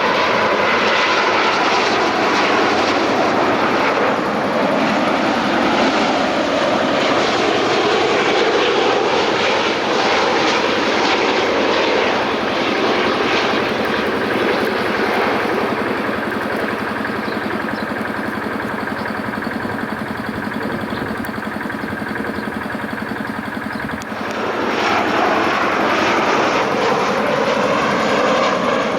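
Jet airliner engines on landing approach, a loud steady rush with slowly sweeping shifts in tone. Past the middle it eases off a little, then about four-fifths of the way through it abruptly comes back at full strength.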